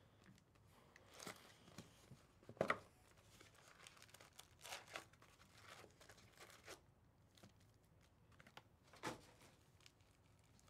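Faint tearing and crinkling of the plastic wrap and cardboard of trading-card hobby boxes being opened, with a few sharper crackles, the loudest about two and a half seconds in and another near the end.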